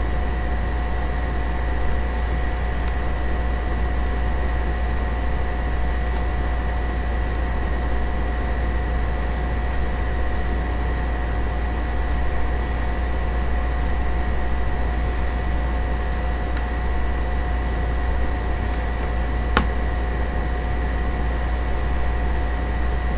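Steady hum and hiss with a constant faint high whine, unchanging throughout, and a single sharp click near the end.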